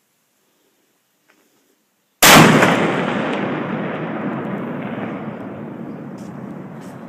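Small black-powder cannon with a 12.5-inch barrel firing a 1-pound ball on a 1,050-grain charge of Goex FFg: one sharp blast about two seconds in, followed by a long rumbling tail that fades away over several seconds.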